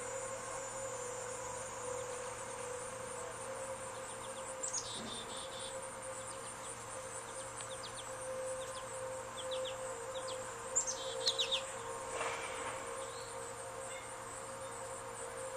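Outdoor tornado warning sirens sounding the steady Alert tone, holding one pitch throughout. Birds chirp over it in quick high bursts about five seconds in and again about eleven seconds in.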